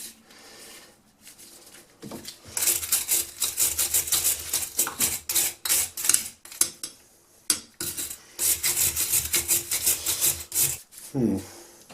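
Quick, rhythmic back-and-forth scrubbing of a rusty vintage auger bit, in two runs with a short pause between.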